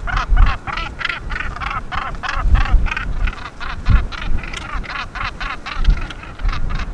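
Northern gannet colony calling: a dense run of harsh, rasping calls repeating several times a second, many birds overlapping.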